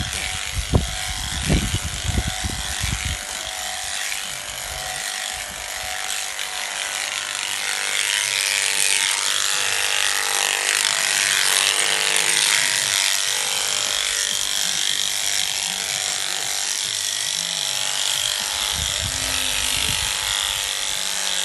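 A sheep-shearing machine's handpiece running steadily, its cutter buzzing as it clips through a sheep's wool. A few sharp low knocks in the first three seconds.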